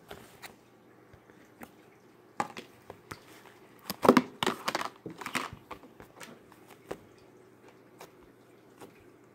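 Hands squishing and pressing a thick slime, making sticky clicks and pops. About four seconds in comes a burst of squelching crackles, the loudest part.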